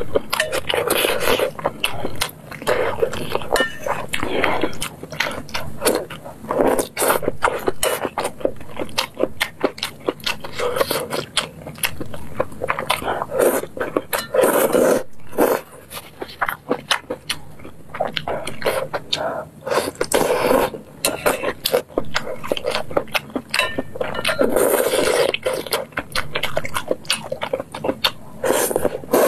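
Close-miked eating of noodles in broth: wet chewing and lip smacks made of many quick clicks, with several longer noisy slurps of noodles.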